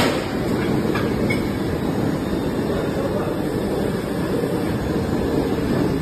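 Injection moulding machine running with a pipe-fitting mould: a steady low machine noise, with a few faint clicks in the first second and a half as the mould's side-core cylinders pull and the mould opens.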